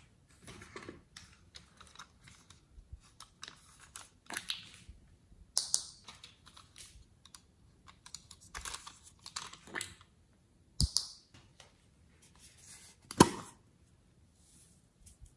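Hard plastic toy containers being handled: scattered clicks, taps and small rustles, with one sharp knock near the end.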